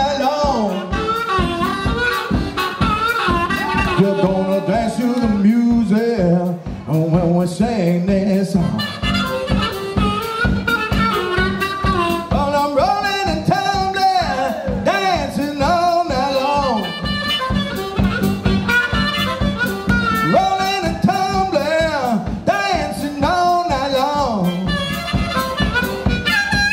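Live rock band playing: electric guitars, bass and a drum kit keeping a steady beat, with a harmonica playing a bending lead line over it.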